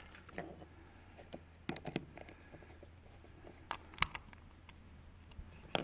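Light scattered clicks and taps of screws and a screwdriver being handled and turned against a plexiglass plate, the sharpest tap about four seconds in, over a faint steady low hum.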